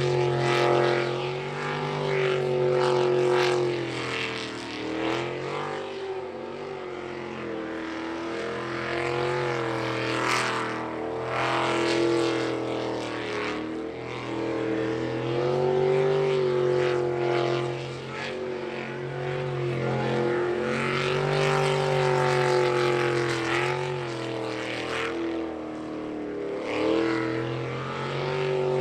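Jet sprint boat's race engine running hard, its pitch dropping and climbing again every few seconds as the boat lifts off and gets back on the throttle through the tight turns of the course.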